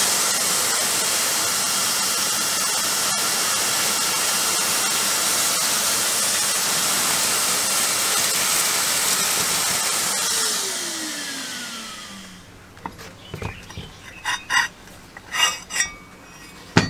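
Vacuum cleaner running steadily, its nozzle sucking up a pile of scraped-off rust flakes and dust. About ten seconds in it is switched off and the motor winds down with a falling whine.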